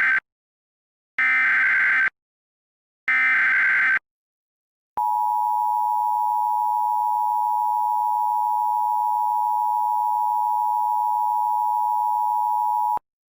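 Emergency Alert System signal ahead of a tsunami warning: the tail of one SAME header data burst, then two more buzzy data bursts of about a second each, a second apart. After a short gap comes the EAS two-tone attention signal, a steady dual tone held about eight seconds and cut off sharply.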